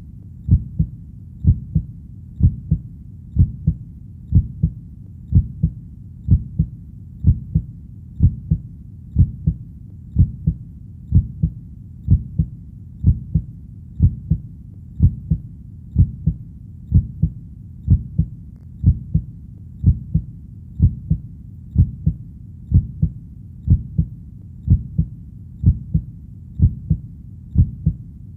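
Human heartbeat: a steady double thump, lub-dub, repeating about once a second at an even resting pace.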